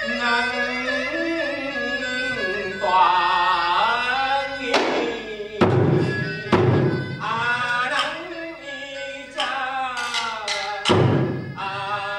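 Vietnamese chèo-style singing, the voice wavering with heavy vibrato, over sharp percussion strikes that come in from about the middle, several in quick succession, with one strong strike near the end.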